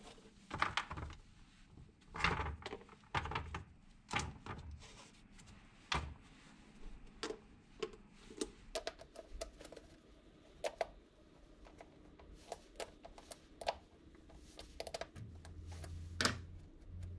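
Irregular clicks, clinks and knocks of metal screw-in studs being twisted off a soft-ground football boot's soleplate by gloved hands and set down on a plywood board. A low steady hum comes in near the end.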